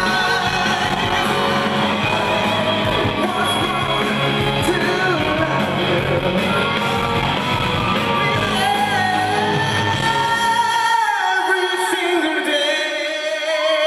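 Male singer with a live rock band, the voice bending and held high over the band. About eleven seconds in the bass and drums drop out, leaving the voice and higher instruments ringing.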